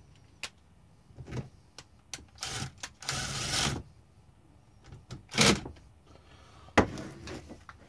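Cordless drill-driver running in several short bursts, the longest lasting under a second in the middle, as it drives screws into a sewage pump's housing. Sharp clicks come between the bursts.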